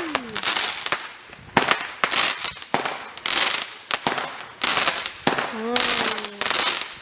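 Consumer fireworks going off one after another: sharp bangs about once a second, each followed by crackling. A person's drawn-out cheer comes through near the end.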